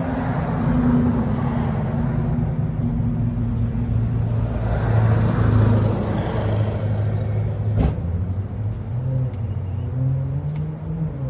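A motor vehicle engine running steadily, its pitch stepping up a little near the end, with a single sharp click about eight seconds in.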